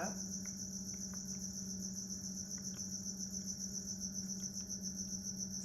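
Crickets chirping in a continuous fast-pulsing trill, over a low steady hum.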